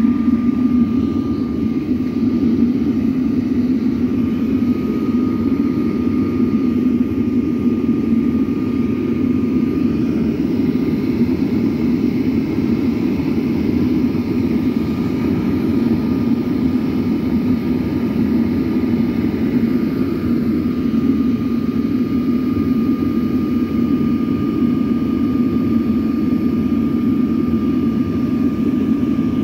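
Homemade drum furnace running hot with air forced in through a pipe at its base: a loud, steady roar of blower and fire, with a thin steady whine above it.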